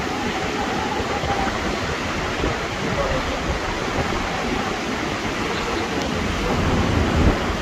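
Hurricane wind and rain buffeting the microphone in a steady rushing noise, with a heavier low rumble from a stronger gust about seven seconds in.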